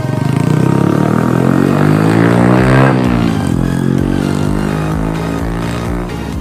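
A motor vehicle's engine passing by, loudest about three seconds in and then fading, with a music beat under the second half.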